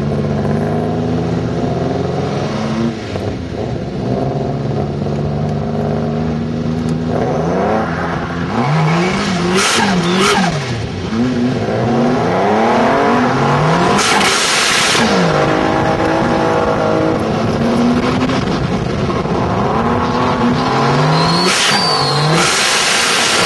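Turbocharged Opel Ascona's engine revving hard, its pitch rising and falling again and again as it drifts, heard from on board. Several short bursts of hiss break in over the engine.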